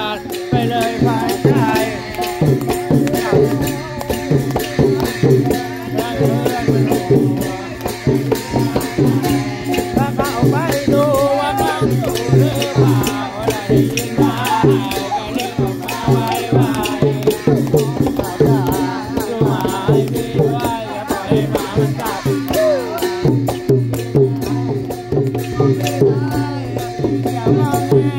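Thai klong yao long-drum ensemble playing a continuous rhythm: hand-beaten long drums with rattling percussion, and voices singing along over it.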